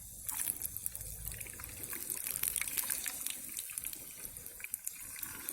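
Hot forged steel blade being quenched, sizzling and crackling steadily as it hisses in the liquid.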